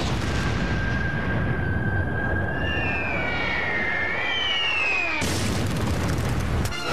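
Cartoon explosion sound effects: a long low rumbling blast with a whistling tone over it that bends downward, then a second, fuller blast about five seconds in that cuts off sharply just before the end.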